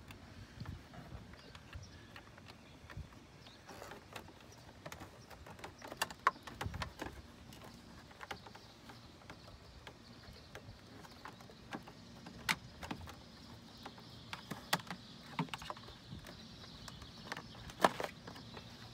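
Scattered clicks and knocks of a car door sill plate and its trim being handled and slid into position, with the sharpest knocks about six seconds in and near the end.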